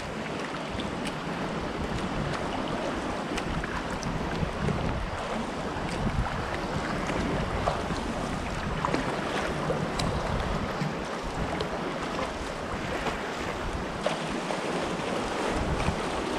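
Sea water lapping and splashing around a sea kayak as it is paddled, with scattered small drips and splashes. Wind buffets the microphone, adding a low, uneven rumble.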